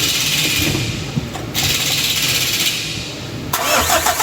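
A steady high hiss, then from about three and a half seconds in the 4D56 direct-injection diesel turning over on its starter with a fast, even rhythm. This is cranking that does not catch, the no-start fault being diagnosed.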